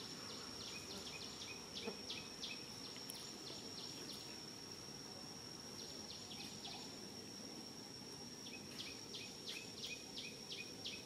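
Faint outdoor ambience: a steady high-pitched insect drone, with three runs of rapid, short high chirps, near the start, about six seconds in, and again near the end.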